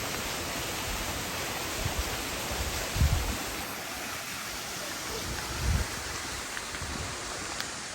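Steady rush of running water from a small stream or waterfall, with two dull low thumps about three seconds and six seconds in.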